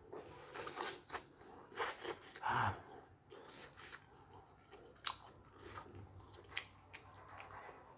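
Close-up chewing of a bite of fried tofu stuffed with meatball (tahu bakso): soft, wet mouth clicks and smacks at a low level, with a brief hum of the voice about two and a half seconds in.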